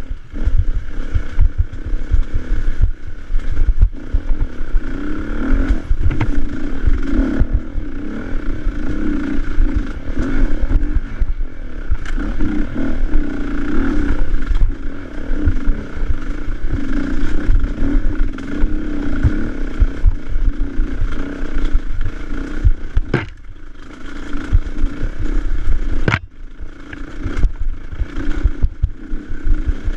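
Off-road motorcycle engine running and revving up and down on a trail climb, with heavy low rumble and clatter from the ride. Two sharp knocks come about three seconds apart near the end, and the engine eases off briefly after each.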